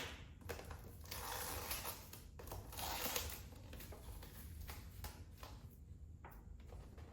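Faint rustling and sharp clicks of a plastic takeaway container being opened, in two short scraping spells about a second and three seconds in.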